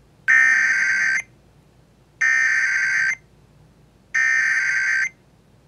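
Emergency Alert System SAME header: three identical bursts of warbling digital data tones, each about a second long and a second apart. They mark the start of a new alert broadcast.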